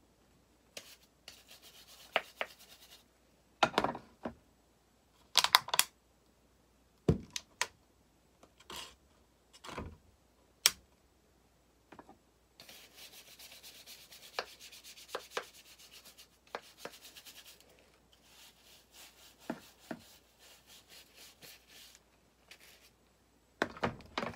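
Stiff scrub brush scrubbing rust off a metal hand tool, in runs of quick rasping strokes from about halfway in. Before that, scattered knocks and clunks as the tool and brush are handled.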